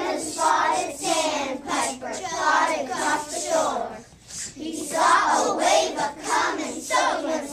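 A group of children chanting a rap together in rhythm, backed by beatboxing from children blowing into cupped hands, which makes short sharp percussive hits.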